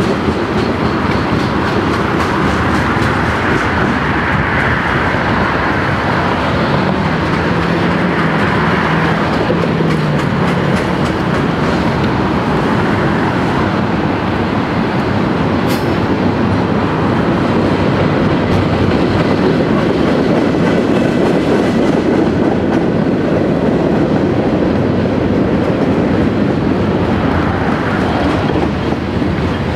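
Freight train of tank cars and boxcars rolling past, a steady noise of steel wheels on rail with a clickety-clack, and one sharp click about sixteen seconds in.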